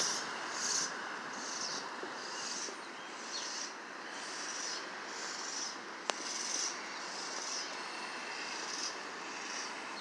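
Short, high chirps repeating about once every three-quarters of a second, over a steady hum of distant traffic, with one sharp click about six seconds in.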